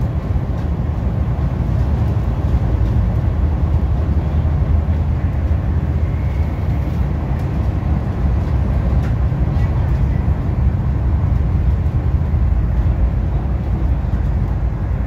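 Steady low rumble of an MTR East Rail Line R-Train running, heard from inside the carriage.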